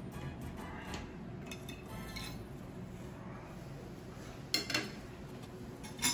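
Metal cake server and fork clinking against ceramic plates while a slice of pudding is served: a few light clinks, the loudest two close together about four and a half seconds in.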